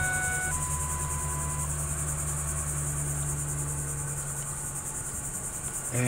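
2001 Ford F-150's engine idling steadily, just started on a newly fitted starter, heard from inside the cab. A steady high-pitched chirring runs over it.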